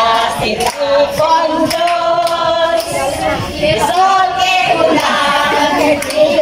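A group of voices singing together, with long held notes.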